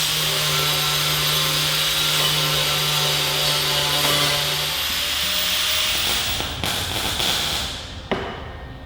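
Power tool working metal, most likely an angle grinder: a steady motor hum under a loud grinding hiss. The motor tone stops about five seconds in, the grinding noise carries on and fades near the end after a single click.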